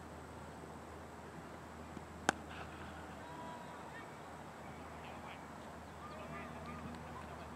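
Cricket bat striking the ball with a single sharp crack about two seconds in, followed by several faint distant calls.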